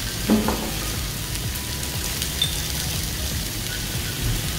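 Pork belly sizzling on a tabletop grill pan: a steady frying hiss. A short voice-like sound comes just after the start.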